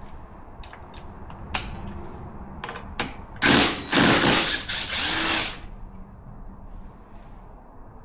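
A handheld power tool, drill-like, run in about two seconds of short back-to-back bursts a little past halfway, amid scattered clicks and knocks of tools being handled.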